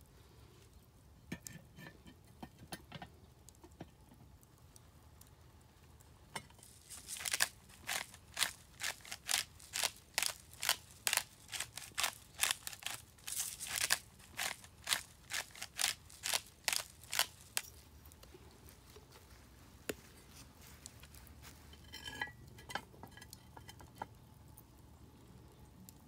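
Seasoning shaker shaken in a steady run of quick rattling shakes, about two a second, starting about seven seconds in and stopping after about ten seconds. A few light clinks of the cast iron pot lid come near the end.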